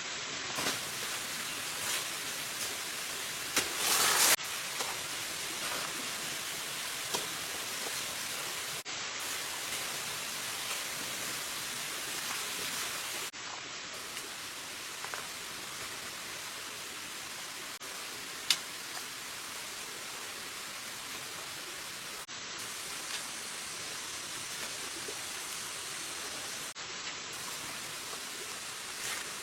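Steady hiss of water, with a brief louder rush about four seconds in and a sharp click a little past halfway.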